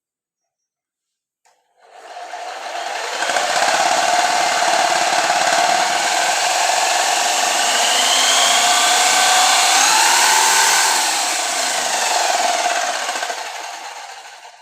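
Electric drill spinning a rewound ceiling-fan motor used as a generator, a loud steady whirring with a whine that wavers in pitch. It starts about two seconds in, runs about twelve seconds and winds down just before the end.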